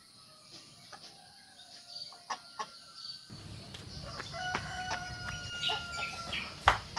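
Roosters crowing and chickens clucking, with scattered light clicks and one sharp knock near the end.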